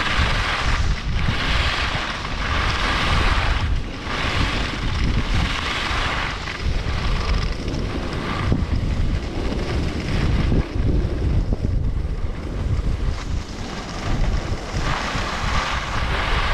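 Skis scraping and carving on packed snow during a fast descent, the hiss surging and fading with each turn every second or two, over wind buffeting the microphone. The hiss is weaker for a few seconds in the middle.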